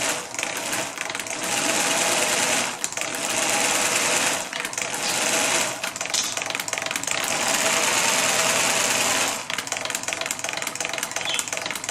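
3D-printed V8 solenoid engine running, its solenoids clicking in a rapid, sewing-machine-like clatter. The clatter grows louder four times, in spells of one to three seconds, the longest near the middle.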